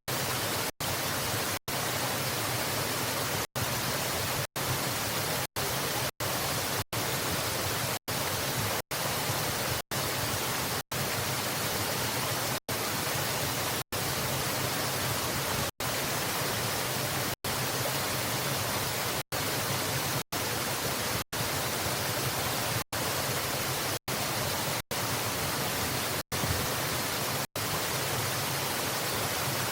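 Steady rushing of a waterfall: an even hiss of falling water, cut by many very brief dropouts to silence.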